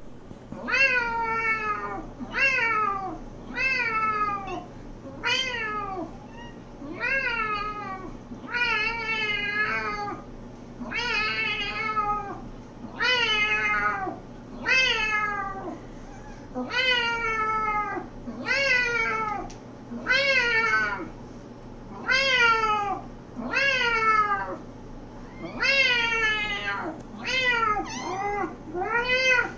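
A person imitating a cat's meow, over and over: a long series of high meows, each rising then falling in pitch, about one every one and a half to two seconds.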